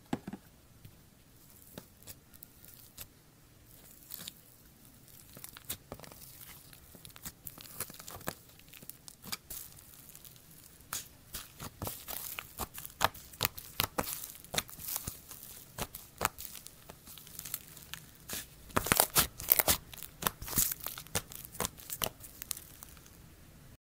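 Slime being stretched and kneaded by hand, making sticky crackling clicks and pops. The clicks are sparse at first and grow denser and louder after about ten seconds, peaking about three quarters of the way through.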